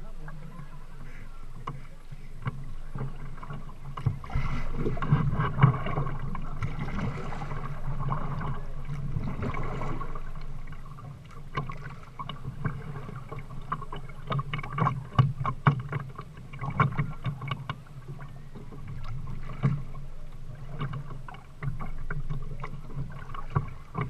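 Kayak paddling: paddle blades dipping and splashing in irregular strokes, with water lapping and trickling along the kayak hull.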